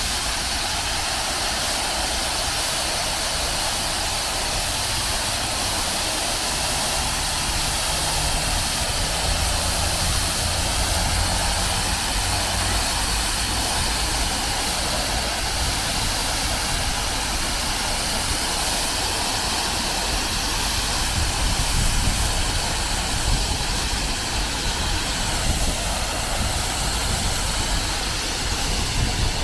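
Fountain jets splashing steadily into a round stone basin: a continuous rushing hiss of falling water, over a low rumble.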